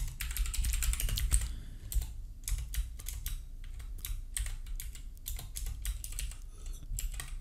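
Typing on a computer keyboard: irregular runs of keystroke clicks with short pauses, over a low steady hum.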